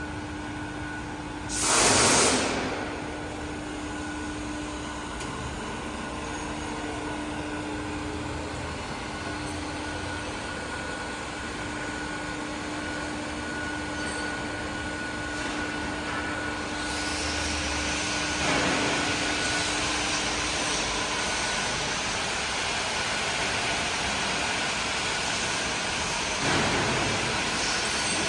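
Semi-automatic shrink-wrapping machine running: a steady mechanical hum with a faint whine, a loud short hiss about two seconds in, and a broader rushing noise that builds from about two-thirds of the way through, with two more short hisses.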